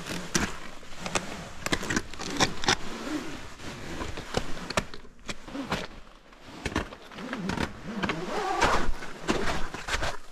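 A climber making a short body rappel without a harness: irregular scrapes, knocks and rustles of the rope rubbing and boots scuffing on rock.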